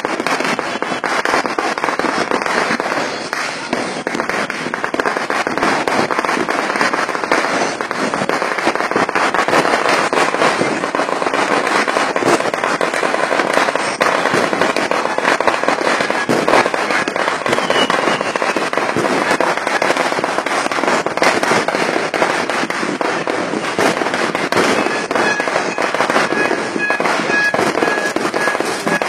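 New Year's firecrackers and fireworks going off without a break, countless rapid pops and bangs running together into a dense, continuous crackle.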